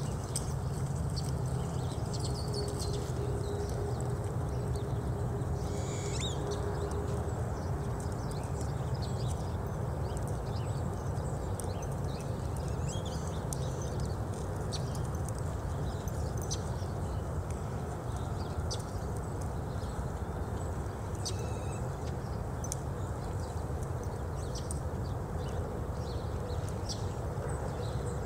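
A ridden horse's hooves on soft arena dirt at a walk and trot, over a steady low rumble, with faint high ticks scattered throughout.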